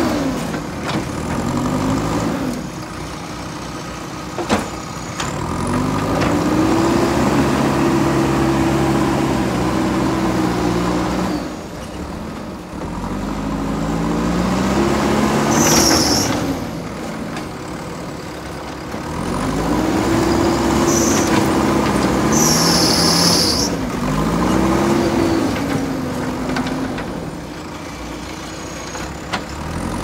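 JCB 3DX backhoe loader's diesel engine revving up under load and dropping back, again and again, as the machine works. Twice near the middle there are short high-pitched hisses, and there is a single sharp knock early on.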